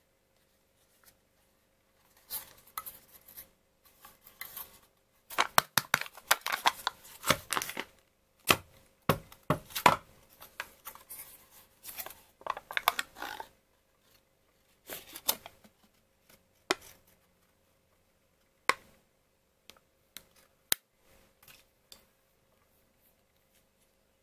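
Foil lid being peeled off a plastic yogurt cup: crinkling and tearing of the foil in bursts, then a few separate sharp clicks as the cup is handled.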